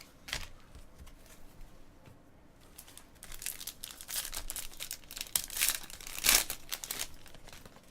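Crinkling and tearing of a foil trading-card pack wrapper being opened by hand. The crackling is quiet at first and becomes a busy run of sharp crackles in the second half.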